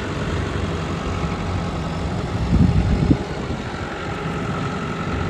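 JCB 3CX Compact backhoe loader's diesel engine idling steadily, with a few louder knocks about halfway through.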